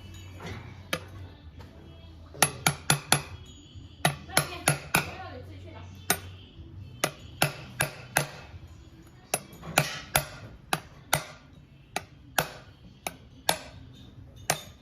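Sharp hammer blows, irregular and some in quick runs of three or four, driving a new oil seal into place to replace a worn one that was leaking oil.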